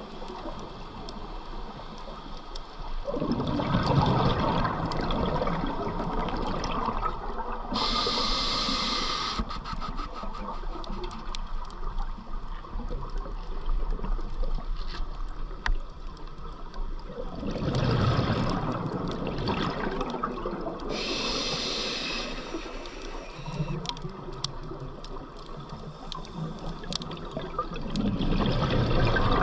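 Scuba diver's regulator breathing underwater: two slow exhales send rushing, gurgling bubbles past the mask, a few seconds in and again past the middle, each followed by a short hissing inhale through the regulator, with another exhale starting near the end.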